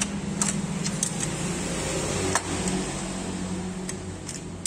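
Hand tools on metal while spark plugs are fitted: a few sharp, separate metallic clicks and clinks from the plug socket and wrench, over a steady low machine hum.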